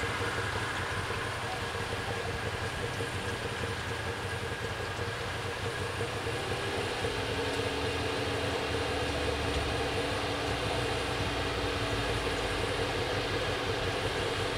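Diesel railcar running, likely a Fiat ALn 501 Minuetto: a steady engine drone with several held tones. About halfway through a deeper hum and a stronger low rumble join in.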